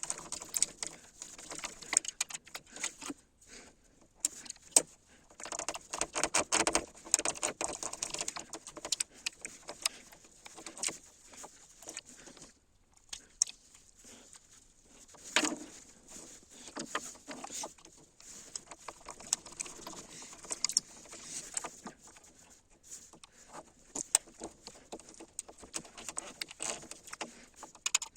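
Hands handling small parts and tools: irregular clicks, light clinks and rustling, with short pauses.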